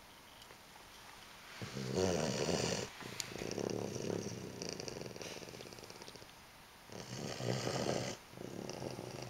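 Staffordshire bull terrier snoring in its sleep: two loud snores about five seconds apart, each followed by a softer, longer breath.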